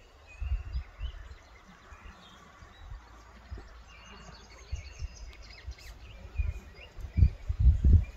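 Small birds chirping in short, high calls. Irregular low rumbling thumps run underneath and are strongest near the end.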